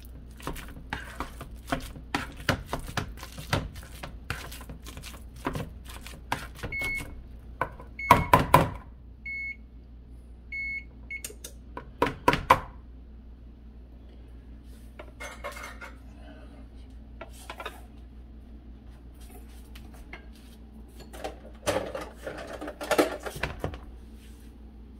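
Wire potato masher mashing ripe bananas in a mixing bowl: repeated quick knocks and squelches of the masher against the bowl, with a couple of louder clatters, thinning out in the second half. In the middle come four short electronic beeps from a kitchen appliance, about a second apart.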